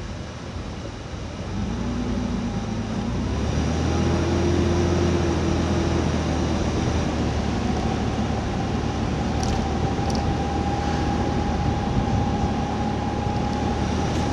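A motor running steadily with a low hum, growing louder over the first few seconds and then holding level.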